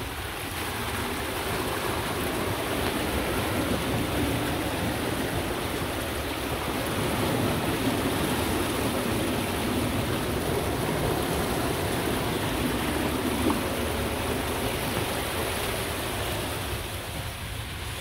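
Golf cart wheels ploughing through shallow floodwater, a steady rushing splash of thrown-up water. It grows louder about a second in and eases near the end as the cart reaches grass.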